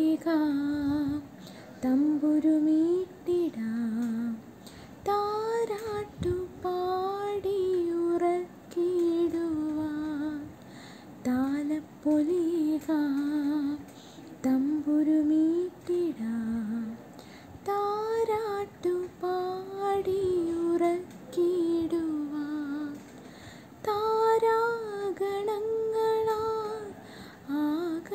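A girl singing a solo song, with no accompaniment heard, in phrases of a second or two separated by brief breaths, with wavering vibrato on the held notes.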